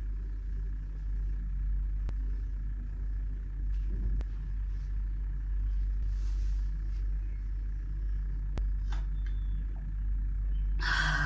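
A steady low rumble of background noise with a few faint clicks, ending in a short breathy exhale just after a drink of water.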